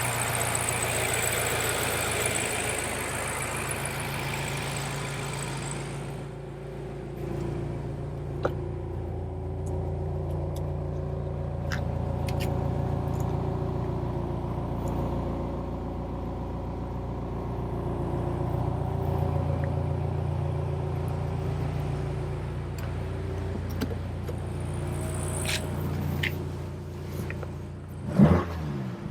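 BMW M5 Competition's twin-turbo V8 running under way with a steady engine note. A band of hiss drops away about six seconds in, and there is one quick, loud rev near the end.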